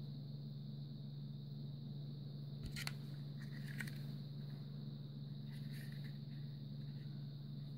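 A few light clicks and scrapes of a plastic butane utility lighter being handled, in two short clusters about three and six seconds in, over a steady low hum.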